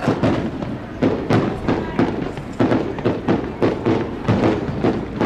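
Fireworks display going off as a rapid, uneven string of bangs and booms, several a second, each with a short echo.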